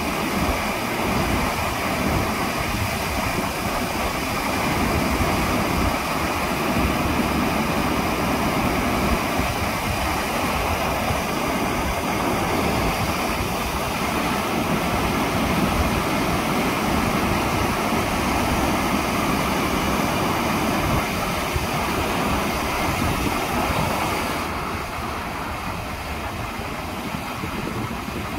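Water of a man-made waterfall rushing down a stepped rock cascade as a steady, dense rush. Near the end it grows a little quieter and duller.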